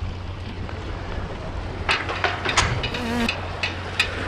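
Wind rumbling on the microphone over sea water washing against shore rocks, with a run of sharp splashes starting about two seconds in.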